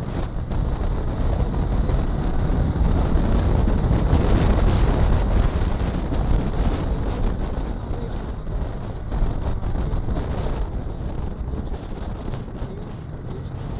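Triumph Tiger Sport 660's inline three-cylinder engine running under way, with wind rushing over the microphone. The noise swells a few seconds in and eases off later.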